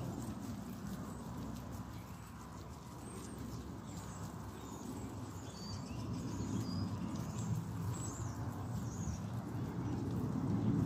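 A herd of guinea pigs chewing and crunching chopped raw vegetables together, a dense, continuous crackle of many small bites, with a few faint high chirps in the middle.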